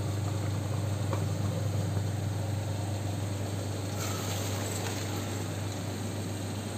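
Water pouring from a pot through a steel colander as half-cooked basmati rice is drained, starting about four seconds in, over a steady low hum.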